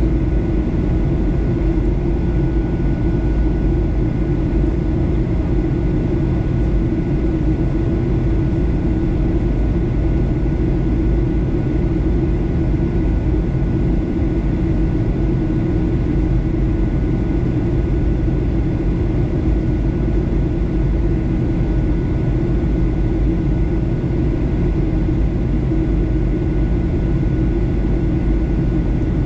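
Steady cabin noise of a Boeing 737-800 in flight, heard from a window seat by the wing: a constant low rumble of the CFM56-7B turbofan engines and airflow, with a faint steady high whine on top.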